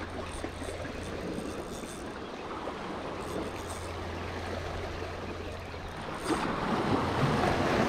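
Small waves washing and lapping against shoreline rocks, louder from about six seconds in.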